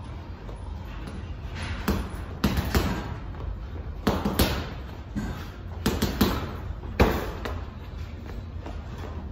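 Heavy hanging punching bag being struck: a series of dull thuds, about ten, some single and some in quick twos and threes, each dying away quickly.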